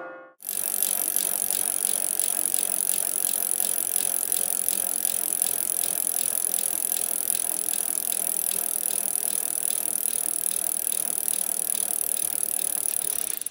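A steady, rapid mechanical rattling clatter that starts about half a second in and cuts off suddenly at the end.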